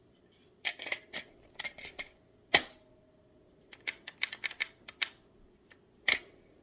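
Polymer Fab Defense Glock 17 magazine clicking and clacking against a Ruger PC Carbine's Glock magwell as it is worked in and out: a run of sharp clicks, one loud clack about two and a half seconds in, a quick rattle of clicks around four to five seconds, and another loud clack near the end. The magazine needs force to seat and won't drop free with the release button.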